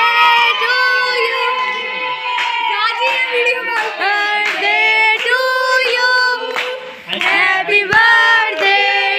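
A group of children and women singing a birthday song together, loud and a little ragged, with a brief break a little before the end.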